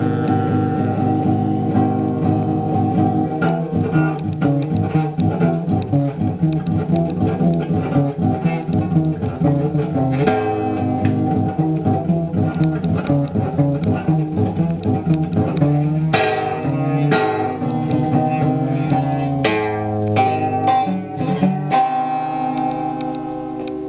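Guitar playing without singing: a run of quickly picked and strummed notes, then a chord left ringing and slowly dying away near the end.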